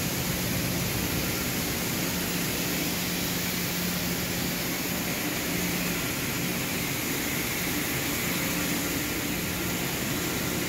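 Handheld angle grinder running steadily with a constant whine, its disc cutting and grinding into the steel of a machine base.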